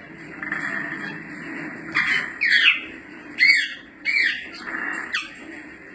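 African grey parrots calling: from about two seconds in, a run of short whistles and squawks, several gliding down in pitch, over a steady background hum.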